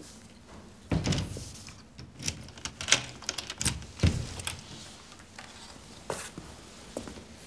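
A door being handled: a thump as it opens about a second in, a run of sharp clicks and knocks, then a heavier low thud about four seconds in as it shuts, followed by a few single footsteps.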